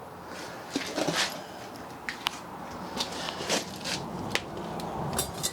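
Rummaging through scrap stock: a run of scattered light clicks, clinks and knocks as pieces are handled and moved about.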